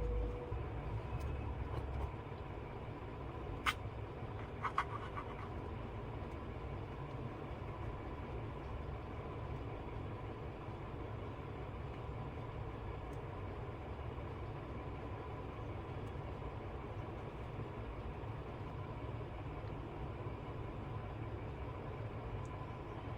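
Steady low background rumble with a faint, even hum, broken by two small clicks about four and five seconds in.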